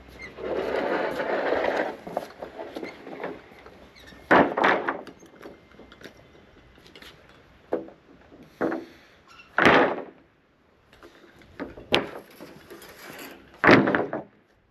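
Timber wall plates being handled and laid out on a concrete slab: a rough scraping for about two seconds, then a series of sharp knocks and thuds as lengths of timber are set down.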